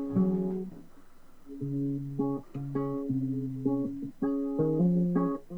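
Guitar picking a slow melody of single plucked notes, each ringing out and fading, with a short pause about a second in.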